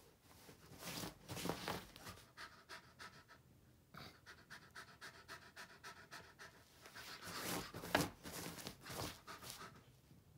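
Wolfdog panting: a quick, even run of breaths in and out, growing louder a few seconds before the end.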